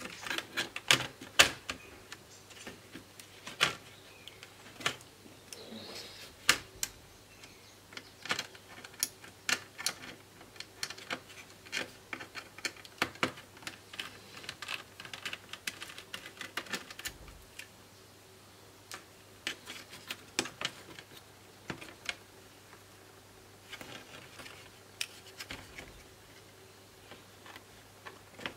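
Irregular clicks, taps and light knocks of plastic and metal parts as a Toshiba Satellite C660D laptop's motherboard is unscrewed and worked loose from its chassis by hand, over a faint steady hum.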